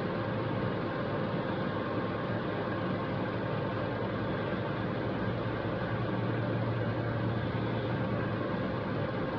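Steady mechanical hum and hiss with a constant tone.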